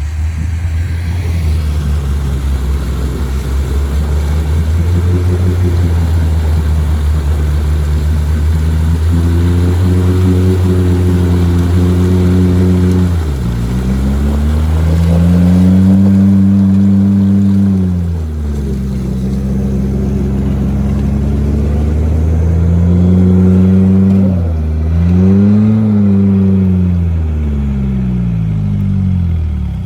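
Off-road 4x4 engine working under load while crossing a muddy ditch. It holds a steady note, then revs up and falls back, once around the middle and again near the end.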